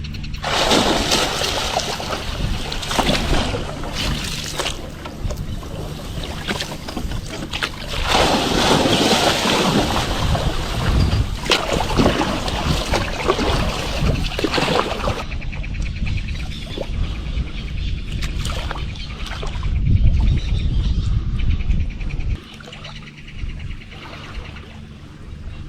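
Water splashing and sloshing in irregular bursts, loudest in the first half, with wind rumbling on the microphone.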